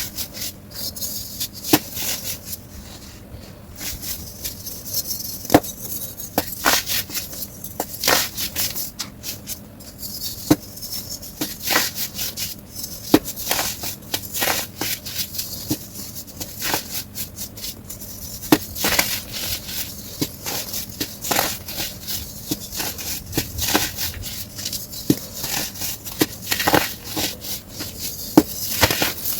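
Compressed white baking soda being crushed, sped up: a dense, irregular run of sharp crunches and crackles.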